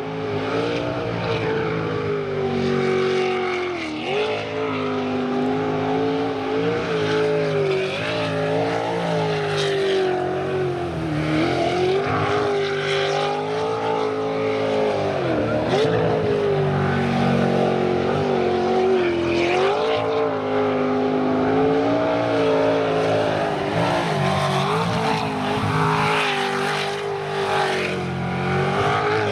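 V8 jet sprint boat engine running at high revs through a twisting course, its pitch dipping sharply several times as it eases off for the turns and climbing again.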